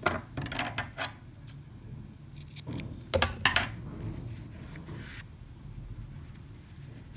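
Small clicks and taps of hands handling crochet tools and yarn: a few near the start, then a louder cluster of sharp clicks about three seconds in, and a brief scrape about five seconds in.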